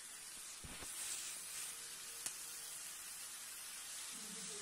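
Chicken pieces sizzling as they fry in a pan, a steady hiss. There is a low thump just before a second in and a sharp click a little past two seconds.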